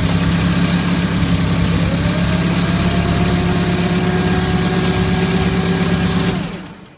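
Hyster H40 forklift engine running, with a whine that rises about two seconds in and holds steady while the transmission pressure is checked at the test port. Near the end the engine shuts off and runs down to quiet.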